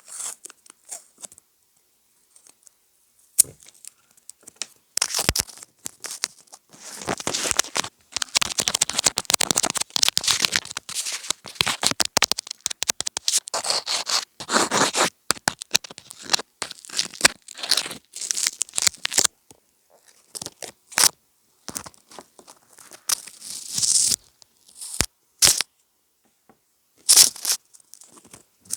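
Close-miked ASMR trigger sounds: irregular crackling, crinkling and tearing-like rustles mixed with sharp clicks, sparse at first and then dense for about ten seconds before thinning into scattered bursts.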